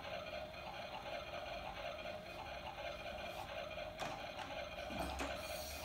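Quiet room tone with a steady faint hum, and a single light click about four seconds in as a plastic toy kettle is set down on a toy stove.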